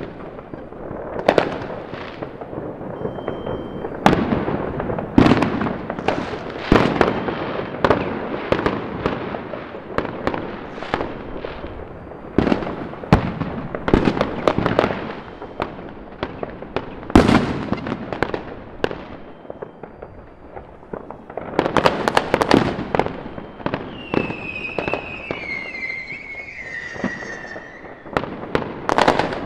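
Many fireworks going off at once: sharp bangs every second or so over a constant crackle and rumble of more distant ones. About 24 seconds in, a high whistle glides down in pitch for a few seconds.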